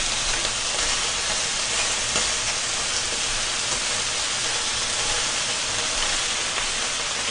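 Pork belly slices frying on a hot griddle, with a steady sizzle.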